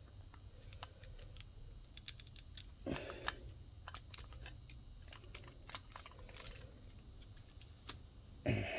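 Light, irregular clicks and taps of small metal compressor parts and tools being handled during reassembly, with two louder, duller knocks, one about three seconds in and one near the end.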